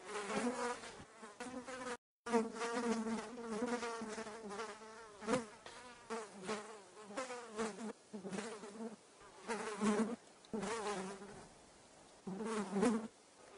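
Fly sound effect: a fly buzzing, swelling and fading in repeated passes with its pitch wavering, and a brief silent break about two seconds in.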